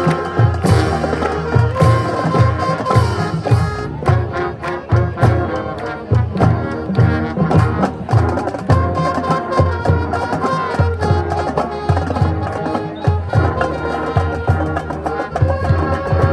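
High school marching band playing: brass carrying held and moving chords over a drumline, with steady bass-drum hits and snare strokes keeping a regular beat.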